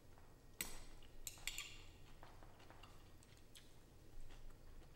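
Quiet clinks and taps of metal chopsticks and a ceramic soup spoon against a ceramic bowl while eating noodles: a sharp click about half a second in, a few more around a second and a half, then lighter ticks.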